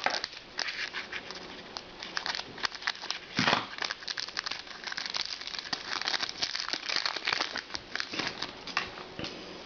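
Trading card packs and cards being handled: wrappers crinkling and cards rustling, a busy run of small clicks and rustles with a louder crinkle about three and a half seconds in.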